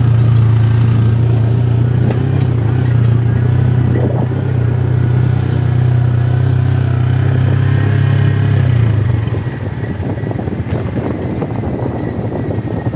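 Motorcycle engine running on the move, with a loud, low, steady drone over it that cuts off about nine seconds in, leaving a rougher, quieter engine and road noise.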